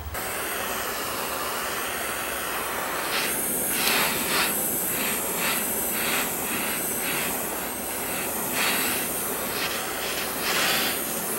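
Handheld propane torch hissing steadily. From about three seconds in it surges in quick pulses as the flame is swept over a polyethylene boat hull. The flame is oxidizing (flame-treating) the plastic so that epoxy will bond to it.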